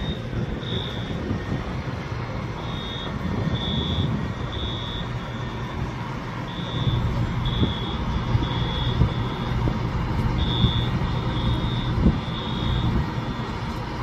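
Short high-pitched electronic beeps repeating roughly once a second, often in groups of two or three, over the steady rumble of a large engine running.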